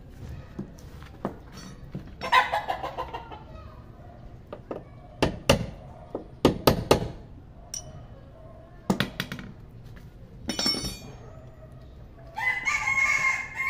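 A rooster crows near the end, after a shorter, similar call about two seconds in. In between, sharp metallic clicks and knocks come from a wrench working the door-check bolt in a Nissan Frontier's door jamb, several in a cluster around the middle.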